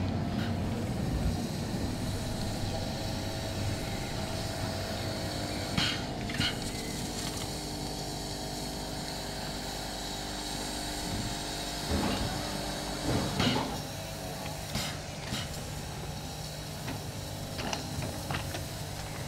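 Steam locomotive 03 2155 being turned on a turntable: a steady low mechanical hum and rumble, with a few sharp knocks about 6, 12 and 13 seconds in. The low rumble eases off about twelve seconds in.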